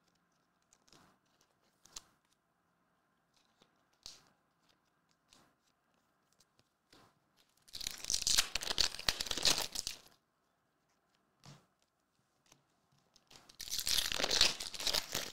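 Foil trading-card pack wrapper being torn open and crinkled, in two long tearing bursts, one about eight seconds in and one about fourteen seconds in. Faint handling rustles and clicks come before them.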